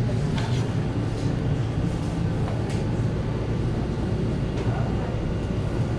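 Steady low hum and rumble of background machinery, with a few faint ticks.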